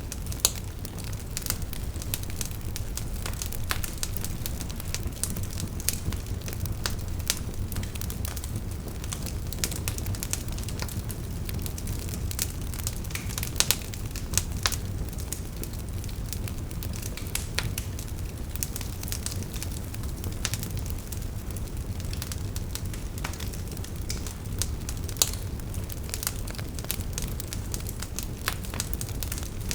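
Bonfire burning, crackling with frequent irregular sharp pops over a low steady rumble; a few louder snaps stand out now and then.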